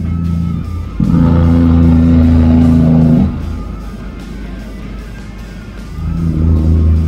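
Background music led by guitar, with a truck's engine passing beneath it.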